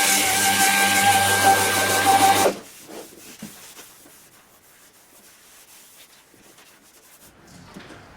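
A power tool running loudly with a steady hiss and hum, which stops abruptly about two and a half seconds in; then quiet, with a few faint knocks.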